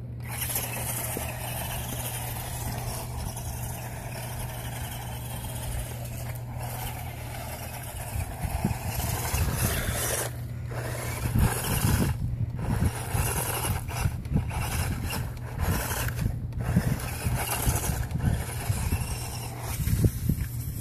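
Redcat Sumo 1/24 scale RC monster truck's small electric motor and gears whining as it drives, cutting out briefly several times as the throttle is let off. From about eight seconds in, a crackle of gravel and sand being crunched and kicked up by its tyres joins the whine.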